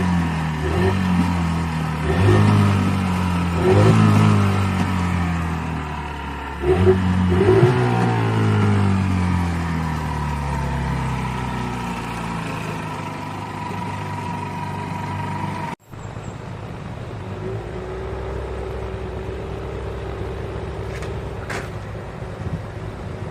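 Mercury outboard motor revved in several quick bursts over the first few seconds, then its pitch slowly falls as it eases off. After a sudden cut about two-thirds of the way through, it runs steadily at a lower pitch under wind noise.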